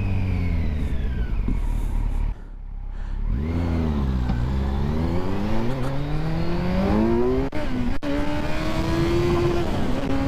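Kawasaki Z900 inline-four engine accelerating hard through the gears: the revs dip briefly about two seconds in, climb steadily, drop at a gear change about three-quarters of the way through, then climb again.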